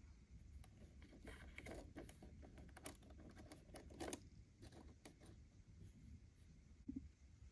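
Faint, scattered clicks and light taps of a miniature plastic pot lid being fitted onto a tiny hanging rail and hook, with the sharpest click about four seconds in and another near the end.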